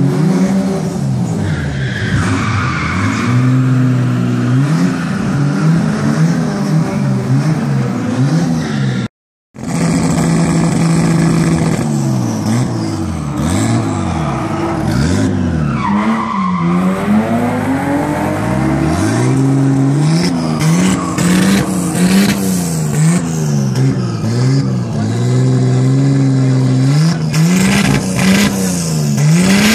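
Nissan Silvia drift car's engine being revved over and over, the pitch rising and falling in quick blips with a few held revs. The sound cuts out for half a second about nine seconds in.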